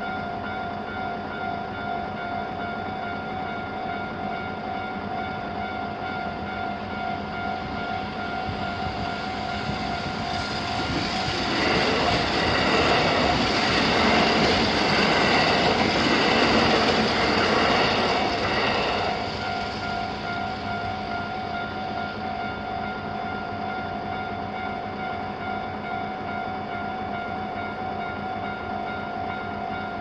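Japanese level-crossing warning bells ringing in a steady pulse, two bells at slightly different rates mixed together. About eleven seconds in a Kintetsu limited express train passes, its rushing rail noise rising loud enough to drown the bells for about eight seconds before fading back under them.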